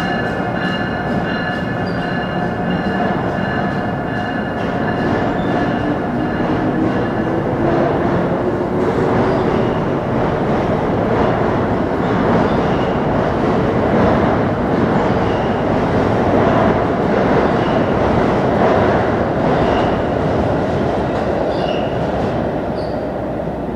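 Amtrak AEM-7 electric locomotive and its coaches passing close by: the locomotive's electric whine, with one tone rising in pitch over the first several seconds, gives way to the steady rush of coaches rolling past with wheels clicking over the rail joints. The sound eases off slightly near the end as the last car pulls away.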